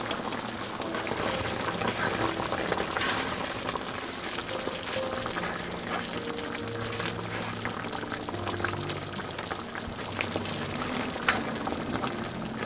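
Thick cream sauce with gnocchi bubbling and sizzling in a frying pan, a steady crackle of popping bubbles. Near the end a spatula knocks sharply against the pan. Soft background music with held notes plays underneath.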